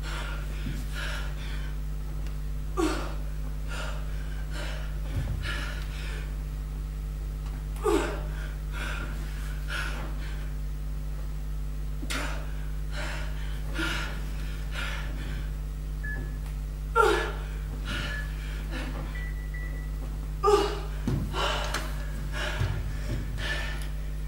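A woman breathing hard and gasping in sharp breaths every second or two, out of breath from cardio exercise, over a steady electrical hum.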